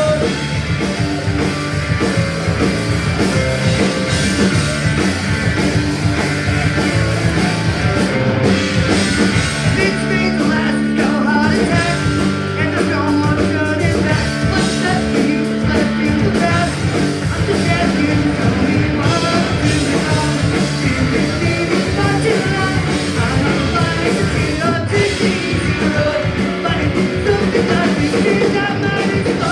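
Live punk rock band playing a loud, fast song: electric guitars, bass and drums with a singer.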